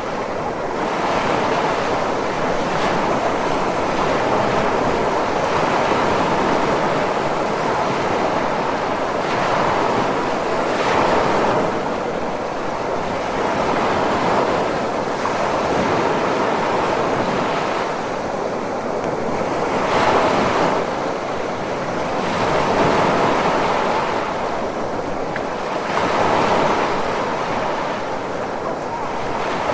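Ocean waves washing in steadily, the noise swelling and easing as each wave breaks every few seconds, with wind mixed in.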